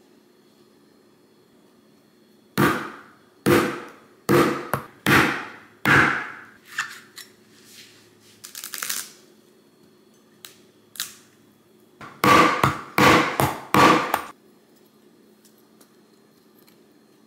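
A hammer striking a metal coconut-opener tool set on top of a young coconut. The strikes come in two bursts, each with a short ring-off, and a few lighter knocks fall between them. The coconut's shell is really hard and does not give.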